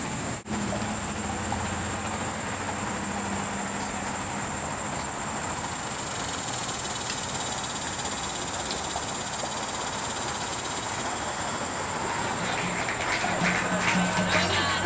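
Dense, steady high-pitched chattering of a colony of bats roosting in a bridge, the chatter that comes before the bats take off for the evening. A low steady hum runs underneath.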